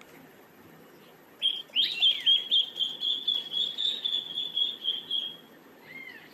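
A young animal's high-pitched, wavering cry that starts over a second in and is held for about four seconds, followed by a short falling squeak near the end.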